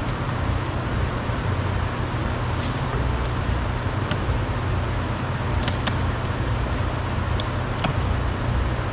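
Steady low rumble, like traffic or a running machine, with a few faint sharp clicks of a flathead screwdriver prying a small plastic trim cover out of a car door panel.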